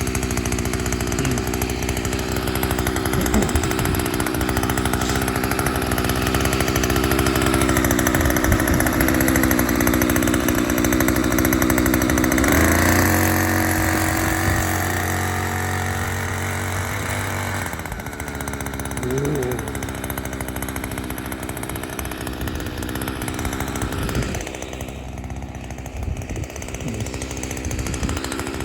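Small engine on a chain pot transplanter running steadily as the machine works, with a shift in its note about halfway through that lasts a few seconds before it settles back lower.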